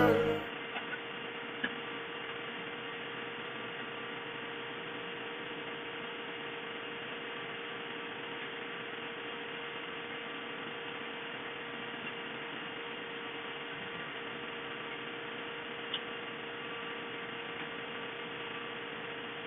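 A steady electrical-sounding hum with a constant tone, unchanging throughout, with a couple of faint clicks.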